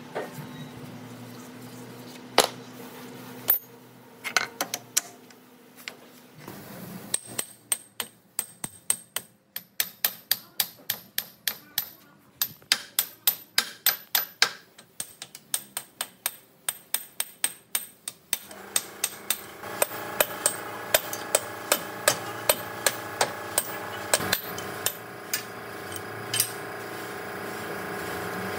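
Hand hammer striking metal: a few separate blows, then a long run of regular blows, two or three a second, with a bright ring. About two-thirds of the way through, a steady machine hum starts under the continuing blows.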